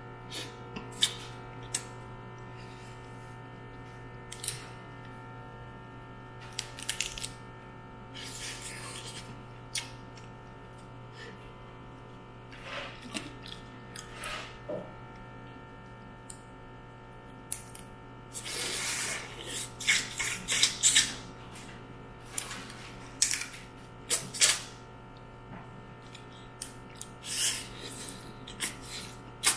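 Eating steamed mud crab: irregular sharp cracks, clicks and crackles of shell being broken and picked apart, with a longer stretch of crunching and rustling just past the middle. A steady low hum runs underneath.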